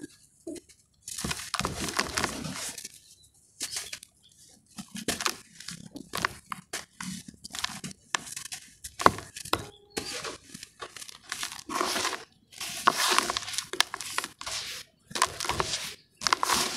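Lumps of moulded ash being crushed and crumbled by hand in a plastic tub with water: a string of irregular gritty crunches and crumbling scrunches with short pauses between squeezes.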